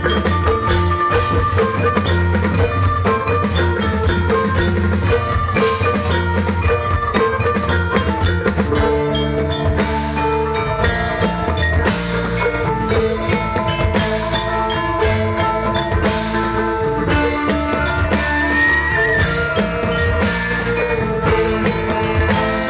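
Ensemble music played continuously, with many struck pitched notes from tuned mallet percussion over a sustained low bass, and drums.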